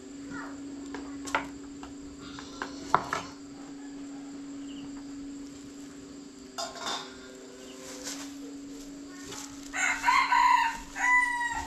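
A rooster crowing once near the end, a long call held on a steady pitch before it drops away, and the loudest sound here. Before it, a few light clinks of bowls and dishes over a steady low hum.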